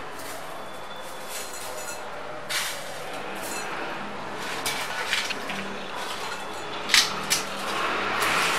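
Crispy fried sev and nimko snacks rustling as handfuls are picked up and dropped into a glass bowl. A few sharp clicks mark the handling, and the loudest comes about seven seconds in.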